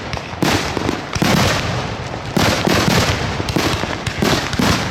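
Fireworks going off in a quick series of sharp bangs, roughly one or two a second, each followed by a brief rumbling echo.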